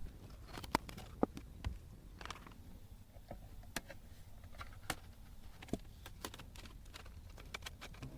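Light, irregular clicks and taps, about fifteen over several seconds, from a Bluetooth keyboard being handled.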